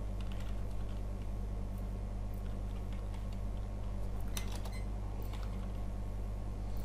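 Computer keyboard keys tapped a few at a time as numbers are typed in, with a quick cluster of clicks about four seconds in. A steady low electrical hum runs underneath.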